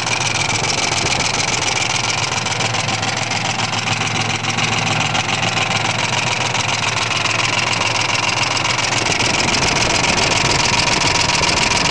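2001 Ford 5.4-liter V8 idling with a steady rattling or tapping noise from the engine, which the owner guesses might be a bad lifter.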